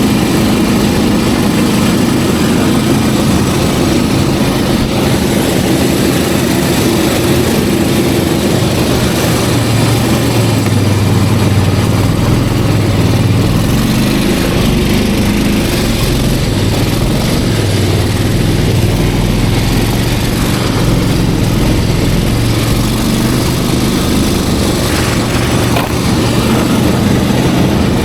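Snowmobile engine running steadily, its note shifting a few times.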